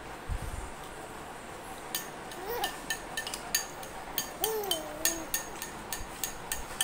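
A baby cooing twice: a short coo, then a longer one that rises and falls. Under the coos is a run of light, quick clicks and clinks that starts about two seconds in.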